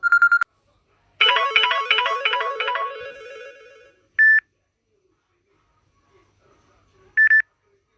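Samsung Galaxy S6 ringtones: a short pulsing electronic tone at the very start, then a quick repeating melody that begins about a second in and fades out by about four seconds. Two identical short beeps follow, one about four seconds in and one about seven seconds in.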